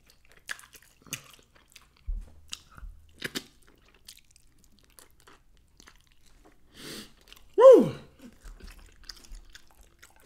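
A person chewing and biting into saucy chicken wings, with scattered short wet smacks and clicks. About seven and a half seconds in comes the loudest sound, a brief breathy hiss and then a short vocal sound that falls in pitch.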